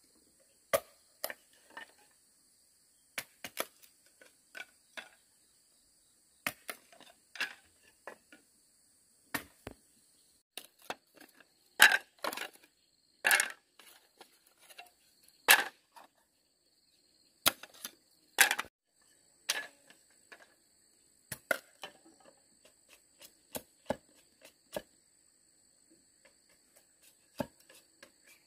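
Irregular sharp knocks and chops of a tool striking bamboo, the loudest few strikes coming close together in the middle. A steady high-pitched insect drone runs underneath.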